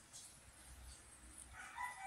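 Quiet room with a distant animal call starting about one and a half seconds in: a few short held notes that change pitch.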